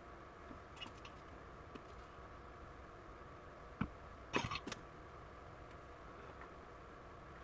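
Hands handling tools and small parts on a wooden workbench: a few light clicks, then a knock and, about half a second later, a quick clatter of three or four sharp taps, over a steady faint hiss.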